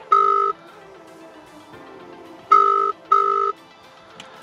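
Ringing tone of an outgoing phone call heard over the hands-free audio, in the British double-ring pattern: two short beeps close together, a pause of about two seconds, then two more. It opens on the second beep of one pair, and a full pair comes about two and a half seconds in.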